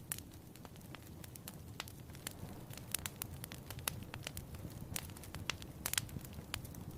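Wood fire crackling, with frequent irregular sharp pops over a low steady rush.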